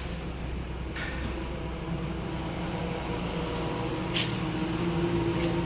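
Steady low mechanical hum, with three short clicks or knocks: about a second in, around four seconds, and near the end.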